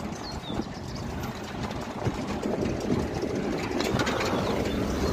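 Open safari jeep driving fast on a forest road: a steady rumble of engine and wind that grows a little louder near the end. A few short, high bird chirps sound over it.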